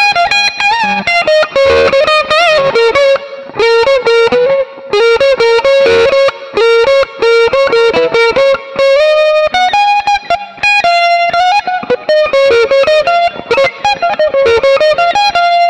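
Electric guitar played through a Mooer GE200 multi-effects unit with a lightly crunchy tone: a quick single-note lead line of short clipped notes and string bends. The phrase moves higher about ten seconds in.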